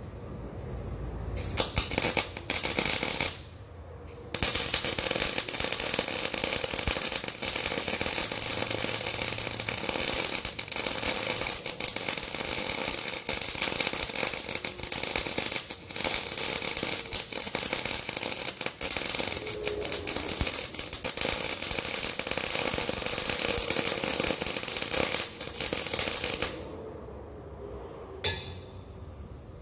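Electric arc welding: a short burst of crackling arc, a brief pause, then a long steady run of crackling and sputtering as weld is built up on an oilfield rig elevator, stopping near the end.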